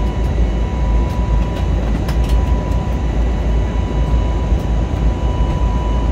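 Steady cabin noise inside an Airbus A320neo with CFM LEAP-1A engines: a loud, even low rumble of engines and airflow with a thin steady tone above it and a few faint ticks.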